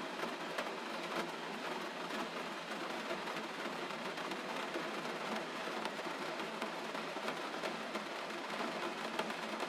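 Steady gentle rain: an even hiss dotted with many small droplet ticks.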